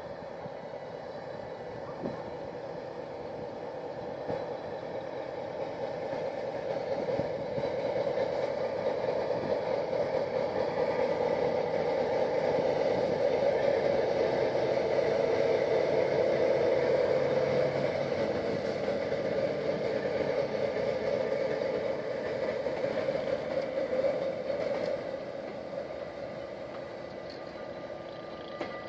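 Diesel locomotive hauling a train of passenger carriages passing by: engine and wheels on the rails grow louder as it approaches, are loudest around the middle, then fade as the train moves away.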